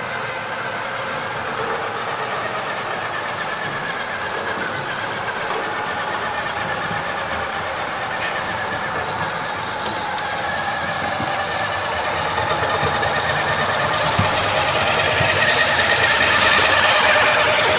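Radio-controlled King Hauler dump truck running, a steady whining drive sound that grows louder over the last few seconds as the truck comes closer.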